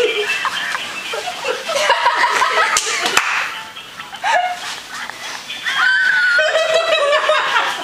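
People's voices and laughter, with two sharp slaps about three seconds in.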